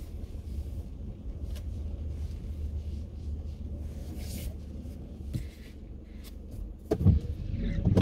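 Car driving slowly over rough dirt ground, heard from inside the cabin: a steady low rumble of engine and tyres, with a few louder knocks and a rubbing sound near the end.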